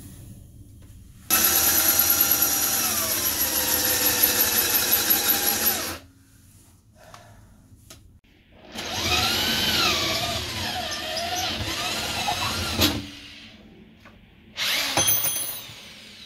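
Corded electric drill boring bolt holes down through a countertop in three runs: a long steady run, a second run whose motor pitch dips and wavers as the bit bites, and a short burst near the end.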